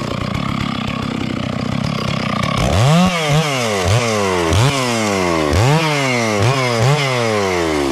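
Two-stroke chainsaw with a Vietnamese-brand chain cutting into a coffee-tree root. It runs steadily at first. From about two and a half seconds in, it revs up sharply and sinks in pitch again and again, about eight times, as the chain bites into the root.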